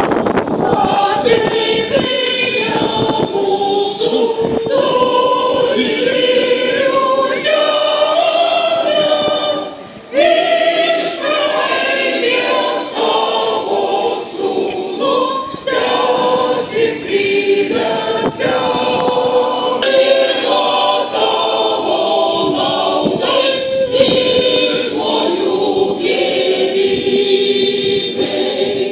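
A choir of many voices singing together, held notes moving from one to the next, with a brief break about ten seconds in.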